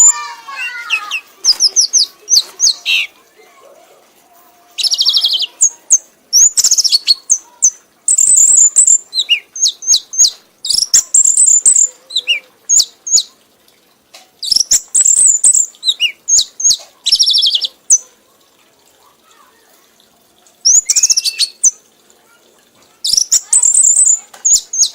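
Kanis merah songbird singing in repeated bursts of rapid, high-pitched chirps and trills, with short pauses between phrases and scattered soft clicks. The bird is in the excited, frenzied singing state that bird keepers call 'mabok'.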